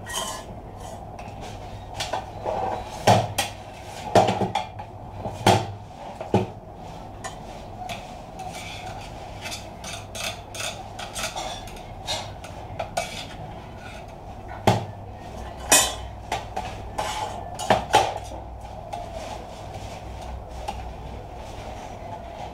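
Metal casing parts of a computer power supply being handled and set down on a workbench: a scattered series of sharp metallic clanks and knocks, some loud, over a steady hum.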